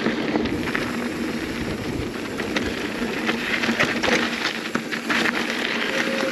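Mountain bike rolling along a dirt singletrack: tyres crunching over dirt and gravel, with many sharp clicks and rattles from the bike.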